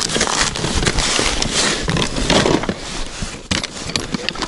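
Handling noise: clothing rustling against the microphone, snow crunching and a plastic ice-fishing box being scraped and knocked, an irregular run of rustles and clicks.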